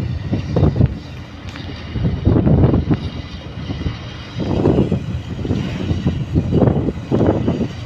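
Wind buffeting the microphone: irregular low rumbling gusts that swell and fade every second or so.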